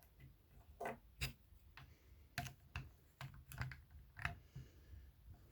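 Faint, irregular light plastic clicks and taps, about ten of them, from LEGO minifigures and pieces being handled.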